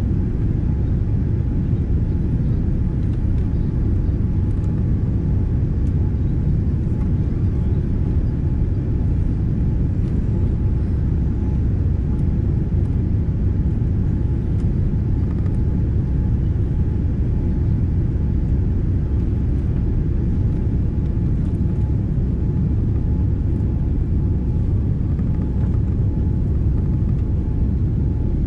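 Steady low rumble of engine and airflow noise inside the cabin of a Boeing 787-10 descending on final approach, with a faint steady hum above it.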